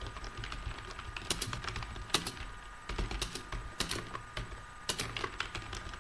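Typing on a computer keyboard: a run of irregular key clicks, some strokes louder than others.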